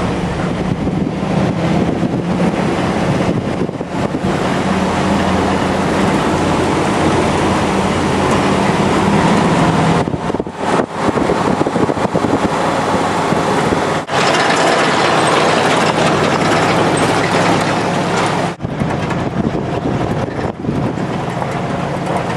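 Engine of a 1950s Ford 4x4 pickup running as it drives up a gravel road, heard from inside the cab as a steady low drone with tyre and road noise. The sound drops out briefly a few times.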